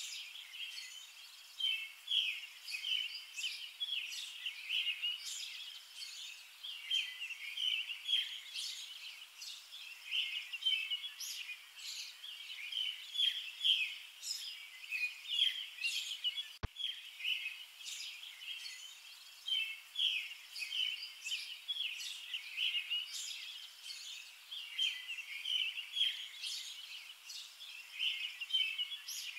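A dense chorus of many small birds chirping continuously, with short high chirps overlapping throughout. A brief click about halfway through breaks the sound.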